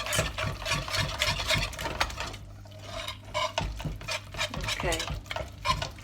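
A hand whisk stirring and scraping through thick homemade potato-starch slime in irregular strokes, pausing briefly about halfway through.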